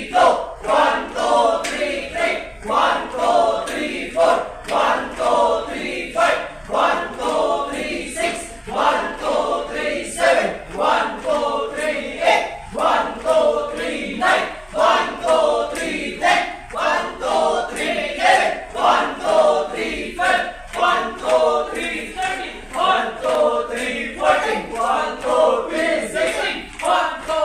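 Many voices singing together in a steady, repeating rhythm.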